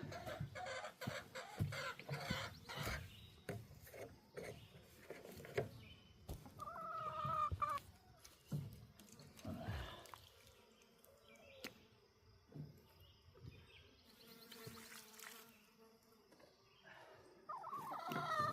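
Chickens clucking, with one drawn-out call about seven seconds in. Knocks and rustling mix with the clucks in the first few seconds.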